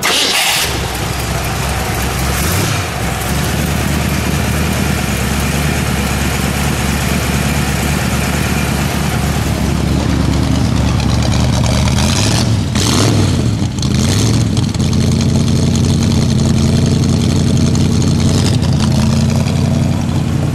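1964 Shelby Cobra's 289 high-performance V8 firing up and running. It is blipped a couple of times a little past halfway, then settles into a steady idle.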